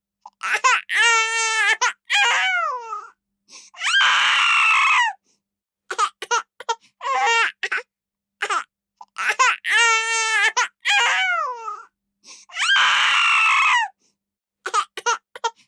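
Baby crying sound effect: short high-pitched wails and sobs with a wavering pitch, and a longer harsh scream-like cry, each cut off into dead silence. The same sequence of cries plays again about eight and a half seconds later, as an edited loop.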